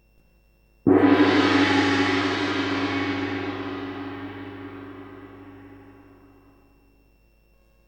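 A metal percussion instrument, gong-like, struck once about a second in; it rings with many overtones and fades away over about six seconds.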